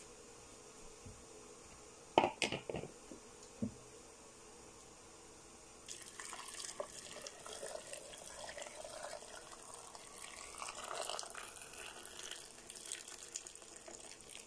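Boiling salt-and-sugar brine poured through a plastic funnel into a glass jar of cucumbers, a steady splashing pour from about six seconds in until near the end. Before it, a few sharp knocks about two seconds in.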